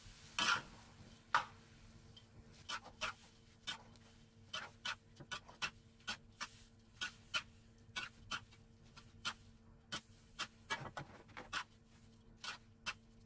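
Cooking utensils, a metal spatula and wooden chopsticks, tapping and scraping against a metal wok while rice vermicelli is tossed and stirred. It comes as a string of irregular sharp clicks, about two a second, with the loudest knocks about half a second and a second and a half in. A faint steady hum lies underneath.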